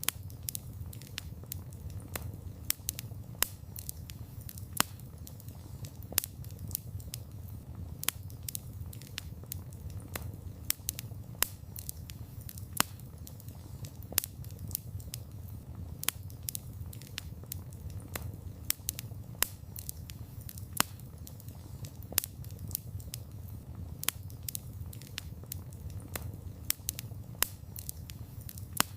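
Wood campfire crackling: irregular sharp pops and snaps of burning wood, several a second, over a steady low rumble of the flames.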